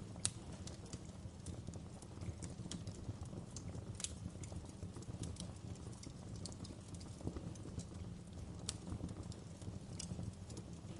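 Fire crackling: irregular sharp pops and snaps over a steady low rumble, the loudest pop just after the start.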